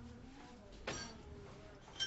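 A single sharp clink of kitchenware being handled at a counter about a second in, with a brief metallic ring, over faint background voices.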